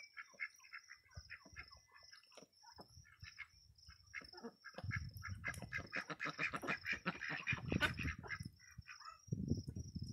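Domestic ducks quacking in a run of short, quick calls that grow busier around the middle, over crickets chirping steadily.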